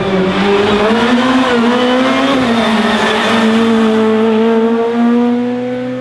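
Rally car engine held at high revs under full throttle, a loud, nearly steady high note that rises a little and dips briefly about halfway before climbing and holding again.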